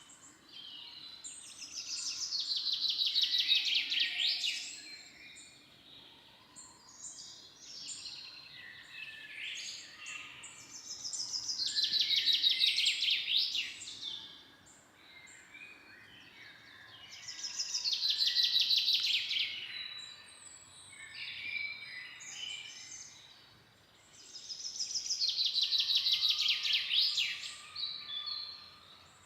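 A songbird sings a loud, rapid trilled phrase of two to three seconds four times, about every seven seconds. Other birds chirp more faintly in between.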